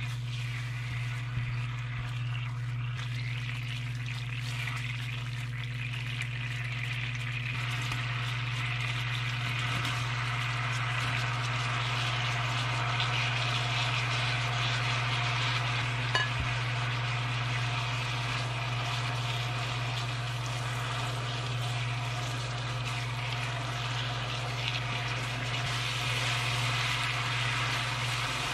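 Soy-based sauce sizzling and bubbling in a frying pan, stirred with a plastic spatula; strips of fish cake are tipped in partway and stirred through the sizzling sauce, with a steady low hum underneath.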